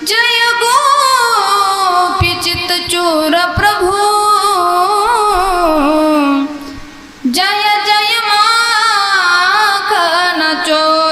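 A woman singing a Krishna bhajan in long, ornamented held notes, with no clear words, in two phrases split by a short breath about two-thirds of the way through.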